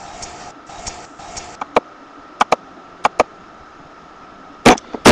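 Scattered sharp clicks and taps of a BB gun's plastic parts being handled while it is taken apart, with a louder knock near the end.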